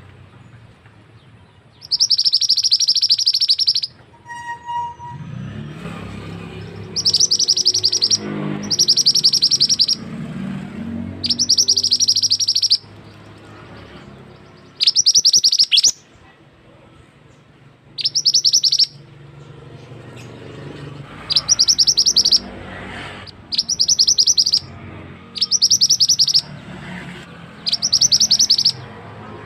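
Male mandi darah (mantenan) bird song used as a lure call: a series of high, rapid chattering trills, each about a second long, repeated about a dozen times with short pauses between.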